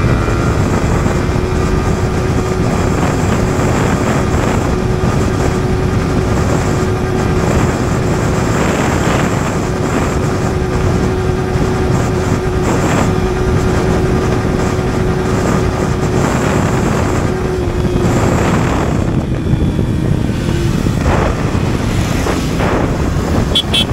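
Yamaha R15 V4's 155 cc single-cylinder engine held at high, steady revs in third gear at full throttle, under heavy wind rush at about 90–100 km/h. Near the end the engine note fades as the throttle is eased off.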